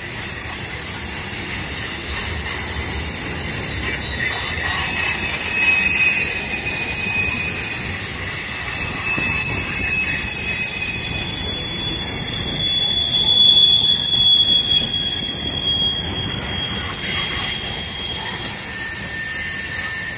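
Freight train cars rolling past at trackside: a steady rumble of steel wheels on rail, with high-pitched wheel squeal coming and going, strongest for a few seconds just past the middle.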